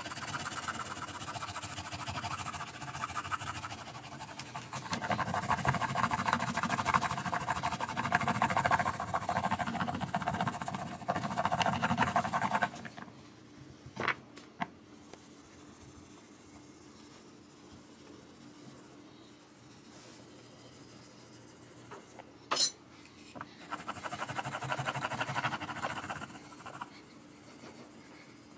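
Guitar frets being polished by hand: rapid back-and-forth rubbing along the fretboard. The rubbing stops for a while in the middle, with two sharp clicks, and picks up again briefly near the end.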